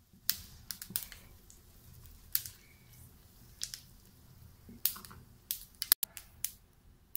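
Mustard and cumin seeds crackling in hot oil in a frying pan during a tempering, with irregular sharp pops about once a second.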